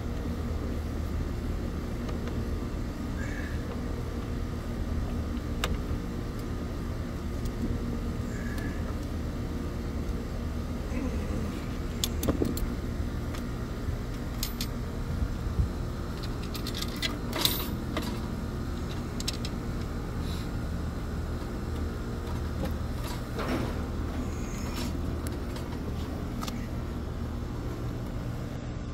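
Steady low hum of machinery, with a few sharp metal clicks and clinks from electrical wiring and hand tools being handled at an air-conditioner disconnect box; the loudest clicks come a little past halfway.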